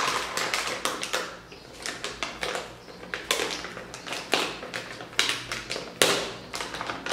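Metallised anti-static bag crinkling and crackling in irregular bursts as hands grip it and pull its sealed end open.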